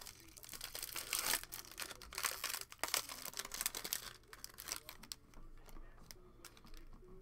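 Foil wrapper of a Panini Playbook football card pack crinkling and rustling as it is opened and the cards are slid out. The crinkling eases off after about four seconds, leaving a few soft taps as the cards are squared.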